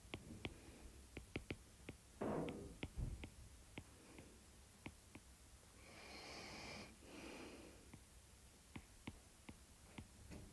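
Faint, irregular clicks and taps of a stylus on a tablet's glass screen during handwriting, with a breath about two seconds in and a longer breath from about six to seven and a half seconds.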